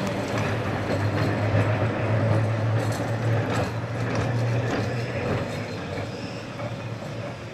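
Vintage electric tram passing close by on its rails: a steady low hum with rolling wheel noise and a few clicks about three seconds in, loudest early on the pass and fading as it draws away.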